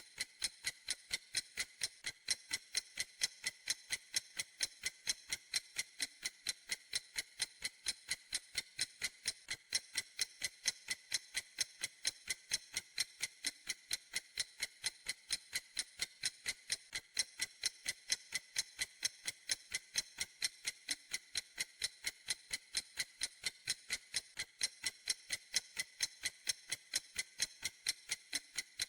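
Clock ticking at a steady, even pace, several crisp, high-pitched ticks a second.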